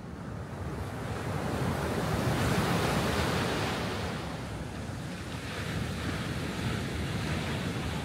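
Sea waves breaking on the shore: a rush of surf that swells to a peak a couple of seconds in, then eases back into a steady wash.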